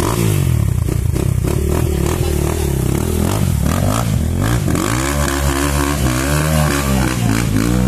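KEWS CB250F dirt bike's single-cylinder 250 cc engine revving hard under load as the bike climbs a muddy bank, its pitch rising and falling with the throttle.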